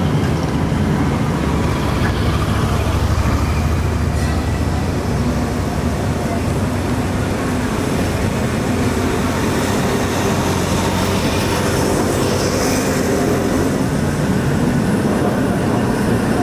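Vintage electric street trams rolling past on street track, a steady rumble of wheels on rails.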